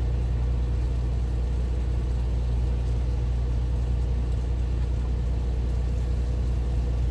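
Semi truck's diesel engine idling, a steady low hum heard inside the cab.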